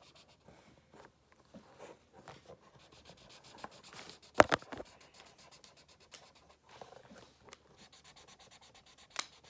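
Felt-tip markers scratching across paper in many short colouring strokes. A sharp click about four and a half seconds in, and a smaller one near the end.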